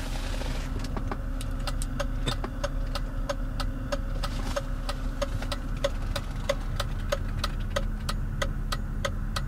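Indicator ticking in an even rhythm, about three ticks a second, over the steady idle of a 2005 BMW X5 E53's engine.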